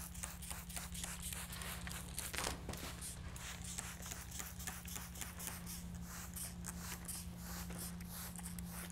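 Hand trigger spray bottle squirting water in quick repeated hissing spurts onto a strip of Hydrotrim L-trim, wetting its water-activated adhesive. A steady low hum runs underneath.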